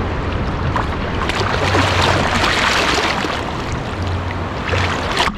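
Sea surf and water washing around people wading in, with wind rumbling on the microphone; the wash swells about halfway through.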